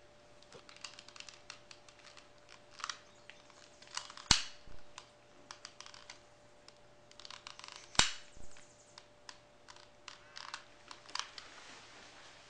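Small clicks and rattles of hands handling hard equipment, with two sharp knocks about four and eight seconds in, over a faint steady hum.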